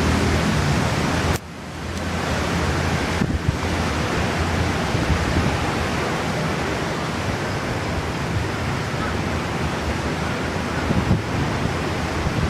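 Typhoon wind rushing steadily across the microphone, with a sudden brief lull about a second and a half in before it picks up again.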